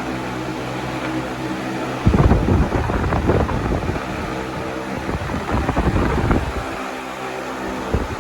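Arge Max 60 cm wall fan running: a steady motor hum, joined about two seconds in by its airflow buffeting the microphone in rumbling gusts that ease around seven seconds and come back near the end.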